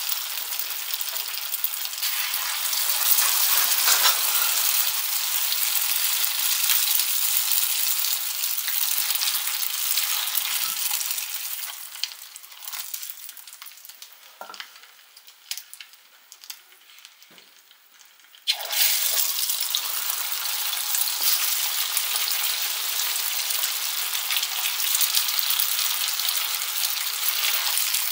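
Food frying in hot oil in a pan, with a steady sizzle. About halfway through the sizzle dies down to faint crackles for several seconds, then comes back suddenly at full strength.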